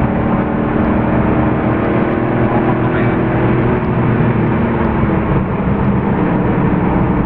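Porsche 993 Carrera 4's air-cooled flat-six running under load, heard from inside the cabin with tyre and road noise. Its note sinks slowly through the middle, then holds steady.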